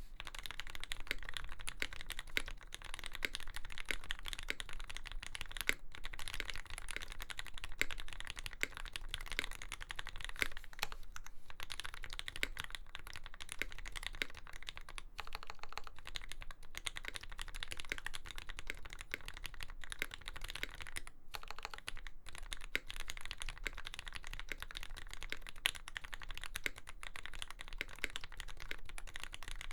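Steady, fast typing on a Lyn Dolphin V3 custom mechanical keyboard: lubed Gateron Fei linear switches with Cherry black tops, an aluminium plate and GMK Dolch keycaps, in a dense run of keystrokes broken by a few short pauses.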